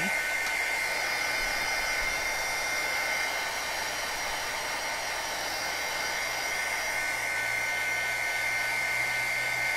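Craft heat tool (heat gun) blowing steadily as it dries wet modeling paste on a paper tag: an even rush of air with a steady high-pitched whine.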